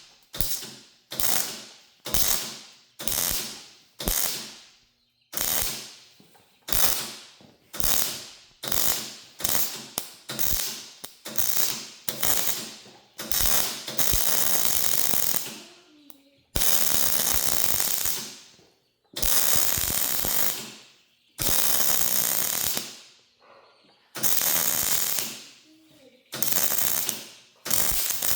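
Arc welder working on a log splitter's hydraulic cylinder to close a pinhole. First comes a run of about fifteen short bursts, one about every second, each starting sharply and fading. From about halfway through, the bursts are longer, about two seconds each, and start and stop abruptly with short pauses between.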